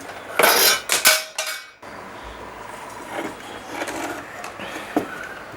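Metal tools clinking and clattering on a workbench during the removal of a resistor from a CRT TV circuit board, a run of sharp strikes in the first second and a half. After that come a few light clicks.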